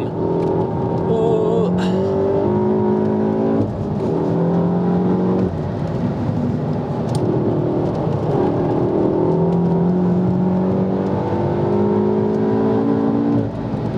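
Volkswagen Golf R Mk7's big-turbo four-cylinder engine heard from inside the cabin under hard acceleration, its pitch rising through each gear. The pitch drops sharply at gear changes or lifts, about three and a half seconds in, again about two seconds later, and near the end.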